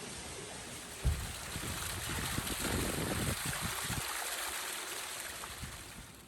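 Rain falling steadily on a tent as an even hiss. About a second in there is a sudden low thump, then the noise swells louder before easing off near the end.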